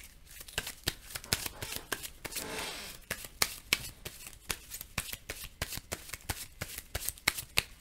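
Plastic-sleeved game cards being handled and shuffled in the hand: a run of quick, sharp clicks and snaps, with a short rustle about two to three seconds in.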